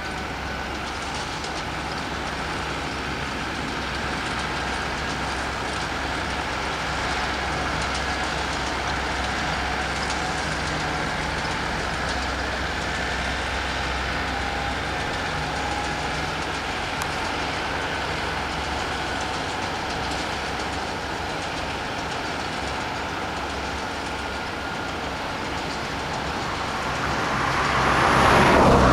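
Steady engine rumble of vehicles running. Near the end a vehicle passes close by, swelling loudly and then fading.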